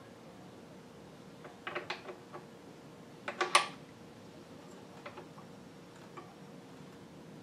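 Metal clicks and clinks of a small hand tool against the metal parts at the back of an industrial sewing machine's head as a part is set in position. There is a cluster of clicks about two seconds in, the loudest ringing clink at about three and a half seconds, and a few lighter ticks later, over a faint steady hum.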